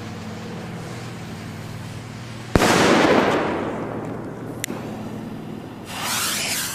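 Trueno N°6 Especial butterfly firecracker going off with a single loud bang about two and a half seconds in, the report fading away over the next couple of seconds. Near the end the fuse of the next firecracker hisses and sparks as it is lit.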